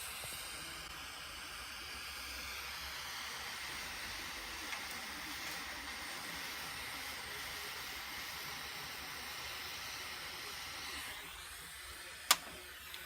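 Small gas torch flame hissing steadily while a tube is soldered onto an orthodontic appliance's body wire. The hiss dies away near the end, followed by one sharp click.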